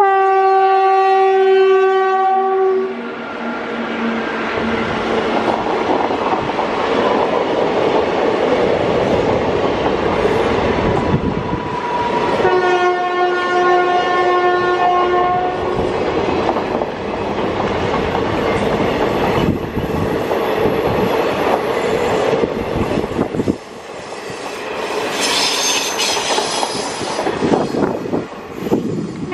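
A WAG-5 electric locomotive's horn sounds one long blast as it passes, then the coaches of the express run by, their wheels clacking and rushing over the rails. The horn sounds again, about three seconds long, midway through, and a high-pitched squeal rises near the end.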